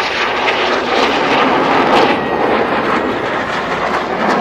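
Loud, steady jet noise from Red Arrows BAE Hawk T1 jets passing in a display crossing, swelling a little about two seconds in.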